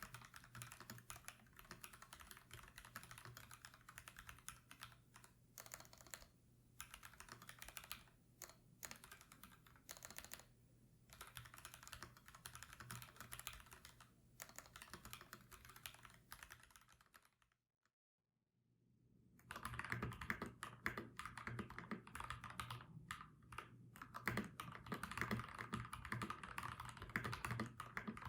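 Typing on a mechanical keyboard with FFFF 62g linear switches: fast, continuous keystrokes with short pauses. The switches are stock at first. After a brief silence about two-thirds of the way through, typing resumes louder on the same switches lubed with 205g0.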